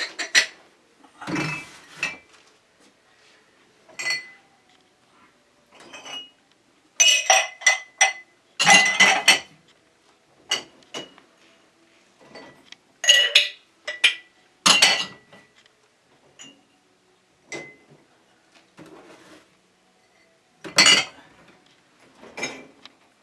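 Glasses and dishes clinking and knocking against each other as they are taken out of a dishwasher and stacked. The clinks come in short clusters with pauses between, and some glass clinks ring briefly.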